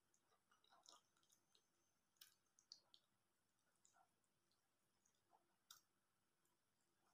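Faint, wet mouth clicks and lip smacks of someone eating soft durian flesh, coming irregularly, with a few slightly louder smacks scattered through.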